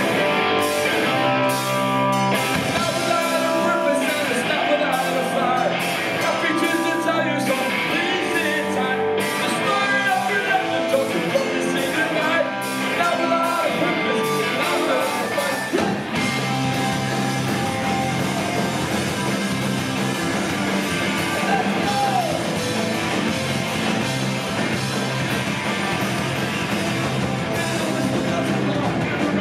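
Punk rock band playing live: electric guitars, drums and bass under shouted singing, heard from within the audience. The deep bass end fills out about halfway through.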